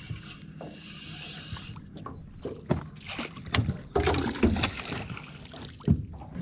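A largemouth bass being landed into an aluminum jon boat. Water splashes at first, then a run of sharp knocks and clatters on the aluminum hull as the landing net is grabbed and the dripping fish is lifted aboard.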